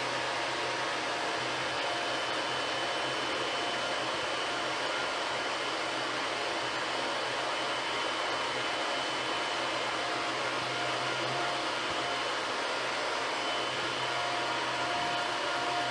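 3D printer running: a steady fan whoosh with faint whining tones from the motors that drop out and come back now and then.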